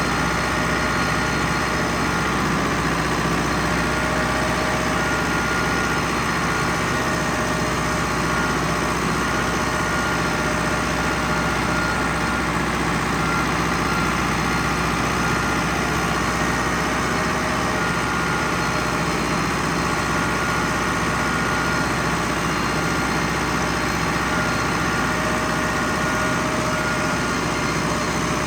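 Ford 6610 tractor's four-cylinder diesel engine running steadily while pulling a John Deere 450E round baler, with a faint whine that comes and goes over the engine.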